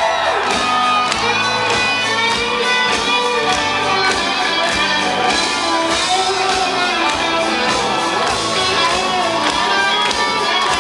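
Rock band playing live: amplified electric guitar and bass guitar over drums, filling a large club hall.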